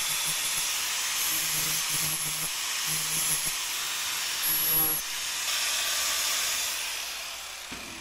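Electric angle grinder with an abrasive disc grinding plasma-cut slag off the edges of a small steel arrowhead. A steady hiss of metal being ground over the motor's high whine, dying away near the end.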